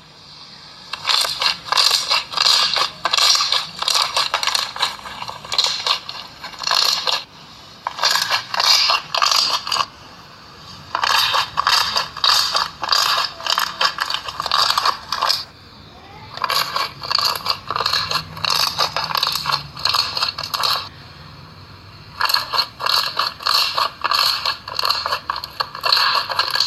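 Slime being squeezed and kneaded by hand, giving dense crackling clicks in bursts of a few seconds with short pauses between.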